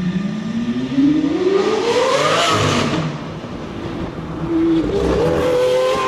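Lamborghini Aventador V12 accelerating hard, its engine note climbing in pitch for about two and a half seconds to a loud peak, then dropping away. A steadier engine note follows near the end.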